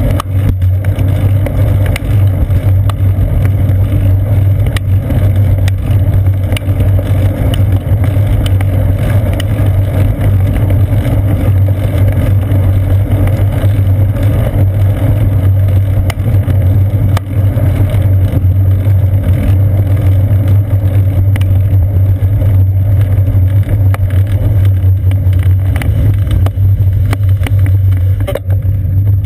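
Steady low rumble of wind and road vibration picked up by a seat-post-mounted GoPro camera as a bicycle rolls along a concrete path. Faint ticks come and go as the tyres cross the path's joints and bumps.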